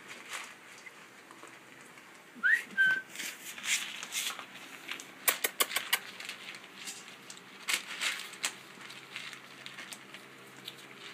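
Saint Bernard puppies eating together from a bowl: a run of short clicks, crunches and smacks from their feeding. A couple of brief high puppy squeaks come about two and a half seconds in, one rising in pitch.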